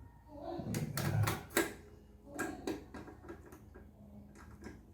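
Scattered light clicks and knocks of small tap parts, a mixer-tap cartridge among them, being handled and turned over, a few strokes a second at irregular spacing.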